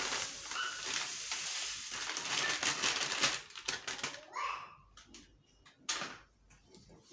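Plastic packet crinkling as its contents are shaken out into a cooking pot. A dense rustle lasts about three seconds, then a few scattered crinkles and taps.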